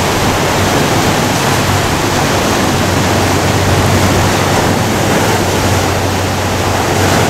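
Ocean surf breaking and washing among shoreline rocks: a loud, steady rush of water.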